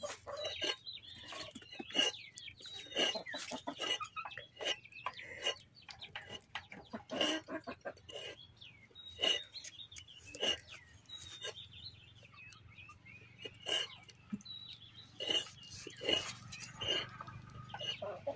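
Chickens clucking in short, scattered calls, with high wavering chirps among them.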